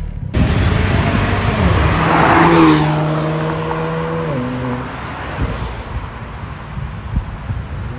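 Ford Focus ST Wagon with a CGW aftermarket valved exhaust driving past under acceleration. The exhaust note swells and then fades, with the engine pitch dropping once about four seconds in.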